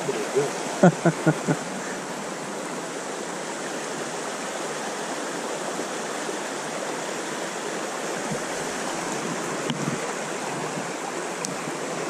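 Mountain trout stream running with a steady, even rush of water. A few short, sharp sounds come in quick succession about a second in.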